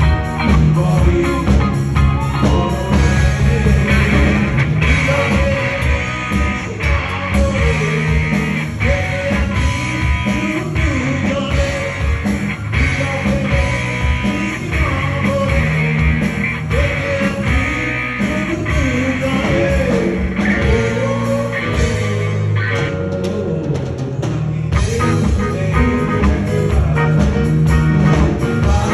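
Bangla rock band playing live: a male lead singer over electric guitar and keyboard, with a steady low beat underneath.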